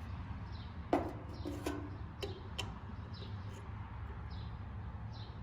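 Short falling chirps of a small bird repeat about once a second over a steady low hum. A few sharp clicks come between about one and three seconds in.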